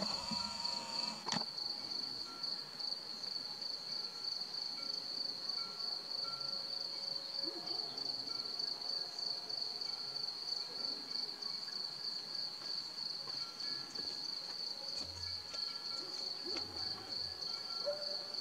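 Crickets trilling in a steady chorus: one continuous, high, finely pulsing tone.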